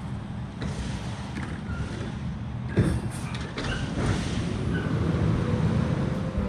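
Garbage truck approaching along the road: a steady low engine rumble with a single knock about three seconds in. After that an engine tone rises and then holds.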